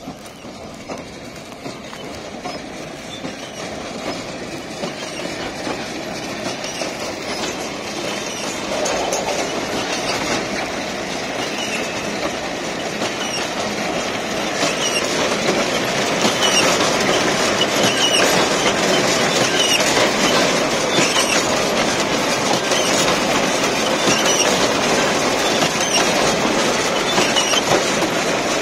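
New Holland BB940A large square baler at work, its pickup and feeder mechanism clattering with a continuous metallic rattle and fine regular clicking. The clatter grows louder through the first half as the machine's intake comes near, then holds steady.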